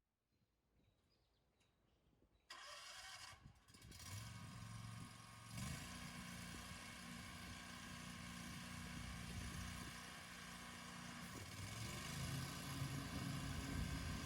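Scag V-Ride II stand-on commercial mower's engine starting after about two and a half seconds of near silence, then running steadily. The engine speed steps up about five and a half seconds in and shifts again near the end.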